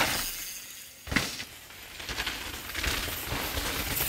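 Downhill mountain bikes on a muddy trail: tyres scrubbing through wet dirt and the bikes rattling, growing louder as a rider comes close. There is a sharp click about a second in.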